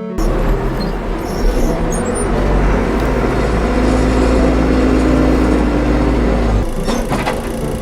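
A heavy construction vehicle's engine running with a steady low rumble, with a few knocks near the end.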